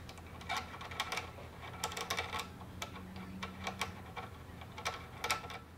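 Irregular clicks and light metallic rattles as a high-pressure hose's metal end fitting is handled and fitted to the brass pump outlet of a SunJoe SPX-9009 electric pressure washer.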